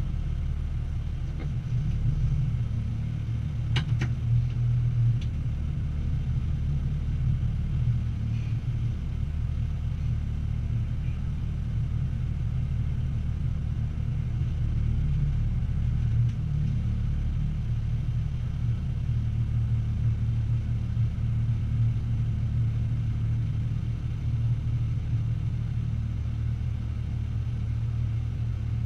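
Diesel engine of a military truck running at low revs, heard from inside the cab as the truck reverses slowly; a steady low rumble, with a sharp click about four seconds in.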